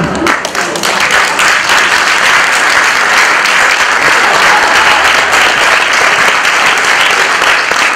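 Theatre audience applauding, a dense steady clapping through the whole stretch.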